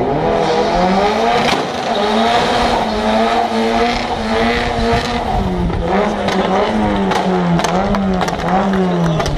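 Drift car's engine revving hard while it spins donuts, the rear tyres spinning and squealing in smoke. The revs climb at the start and hold high, then rise and fall over and over with the throttle in the second half, with sharp cracks over it.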